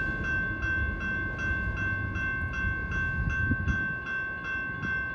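Railroad crossing bell ringing at about three strikes a second over the low rumble of a passing freight train, whose rumble fades near the end.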